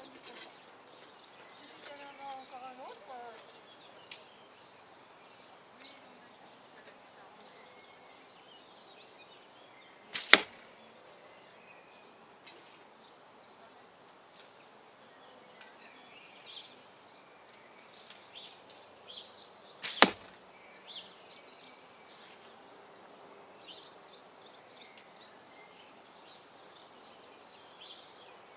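Two carbon arrows striking a foam target block, each a single sharp hit, the first about a third of the way in and the second about ten seconds later.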